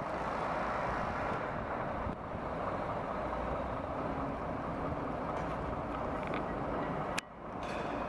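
Liebherr LTM 1100-5.2 mobile crane's diesel engine running steadily under load while it hoists a suspended skip. A sharp click and a brief drop in the sound come about seven seconds in.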